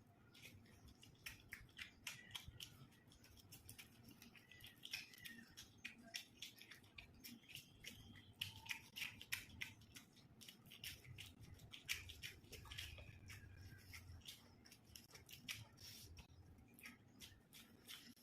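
Faint, irregular wet clicks and smacks of a person chewing and eating fish, close to the microphone.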